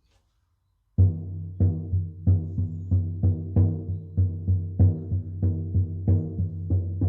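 18-inch buffalo-skin shamanic frame drum on an ash frame, struck with a soft beater in a steady beat of about three strokes a second. The beat starts about a second in, and a deep ringing tone carries between the strokes.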